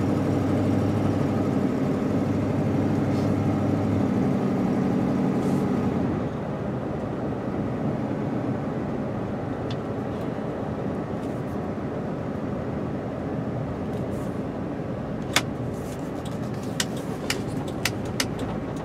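Road vehicle's engine and road noise heard from inside the cabin while driving. The engine hums steadily for about six seconds, then drops to a quieter hush as the vehicle slows. From about fifteen seconds in, a turn signal ticks about twice a second as the vehicle turns.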